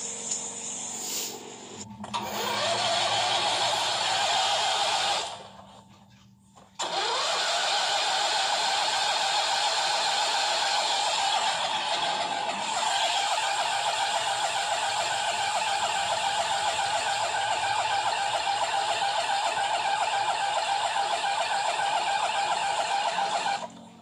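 A motor on a 2006 Huskee riding tractor spins up with a rising whine about two seconds in and cuts out after about three seconds. It then spins up again and runs with a steady high whine for about seventeen seconds, stopping just before the end.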